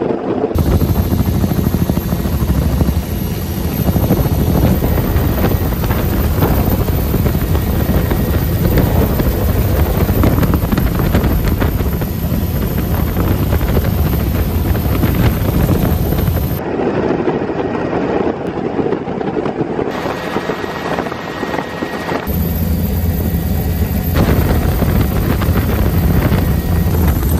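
Helicopter in flight: steady rotor beat and engine noise, loud and close. The sound changes abruptly a few times where the footage is cut.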